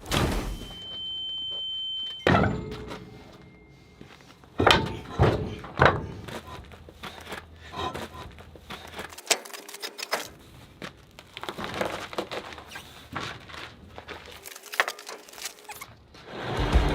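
A series of knocks and thuds with many smaller clicks, preceded by a short, steady high beep about half a second in.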